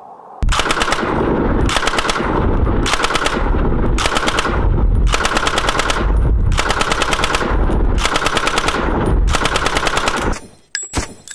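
A Model 1914 Lewis gun firing .303 rounds in fully automatic fire, with shots running continuously for about ten seconds before stopping. It is followed near the end by a few short, sharp ringing clicks.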